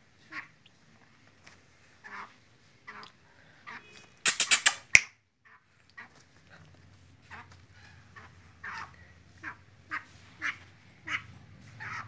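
Black francolin (teetar) calling: short notes every second or so that come faster near the end. About four seconds in comes a loud, harsh burst of several rapid notes.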